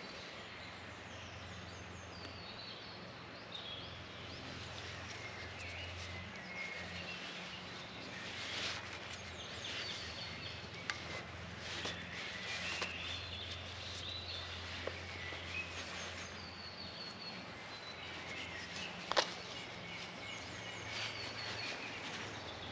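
Quiet woodland ambience: birds chirping over a low steady hum, with faint rustles and small clicks of paracord being wrapped and tightened round a knife handle, and one sharper click near the end.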